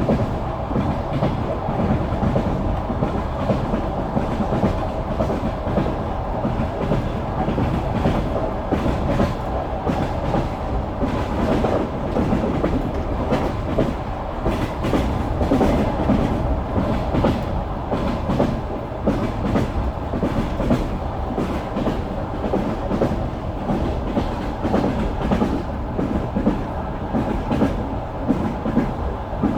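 Passenger train wheels clattering over rail joints, a continuous clickety-clack over a steady rolling rumble, heard from inside the carriage.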